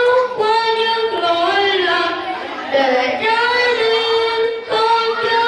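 A child singing into a handheld microphone in a high voice, holding long notes and gliding between them.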